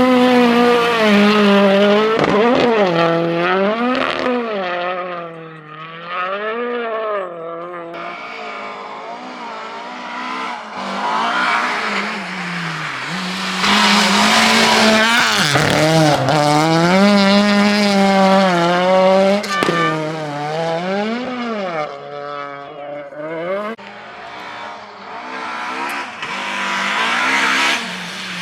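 Rally car engine worked hard at full throttle, its pitch climbing and dropping again and again through gear changes and throttle lifts. It is loudest in the middle, fading somewhat before and after as the car moves away and back.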